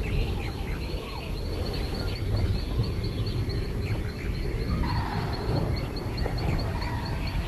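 Wild animal calls and chirps over a steady low rumble, with a fast, even, high-pitched chirping throughout and a rising call about five seconds in.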